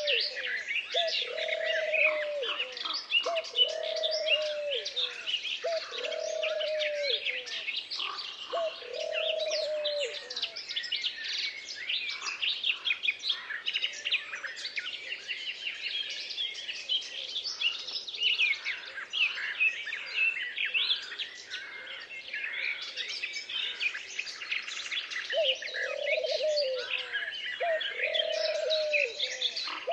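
Forest bird chorus by day: many songbirds chirping and singing at once. A lower, arching call repeats about once a second in a run at the start and again near the end.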